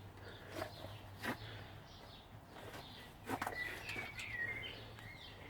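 Faint outdoor bird chirping, a short warbling phrase about midway, with a few light knocks that sound like footsteps or handling.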